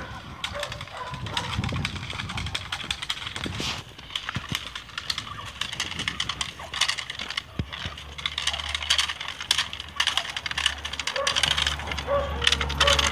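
A dog on a leash barking and lunging at a helper during bite-work training, over a dense run of short clicks and rustles. A low steady rumble, like wind on the microphone, comes in about halfway through.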